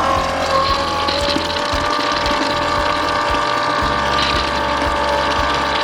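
Small electric pump running with a steady whine after spinning up. It is circulating a white-vinegar descaling solution through a water heater's coil.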